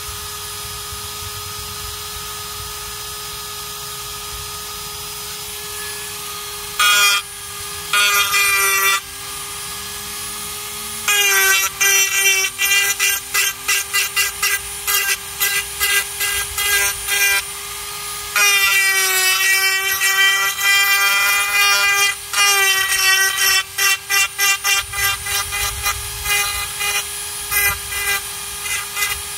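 Flex-shaft rotary tool running with a steady high whine. From about seven seconds in, its carving bit cuts into the dried gourd shell in short repeated passes, much louder while it bites.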